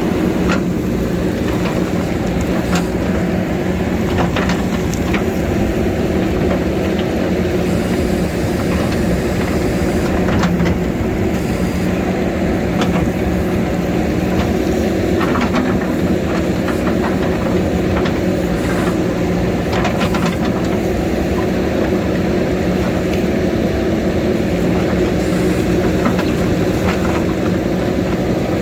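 JCB backhoe loader's diesel engine running steadily under load, with scattered sharp knocks and clatter from the work.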